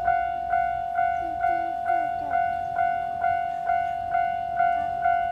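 Japanese railway level-crossing alarm ringing its repeated electronic bell, about two strikes a second at an even beat over a steady ringing tone.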